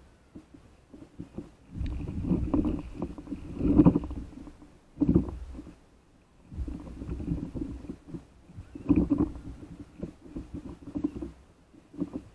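Seawater sloshing and slapping against an inflatable paddleboard as it rides the swell, coming in irregular surges with short lulls between.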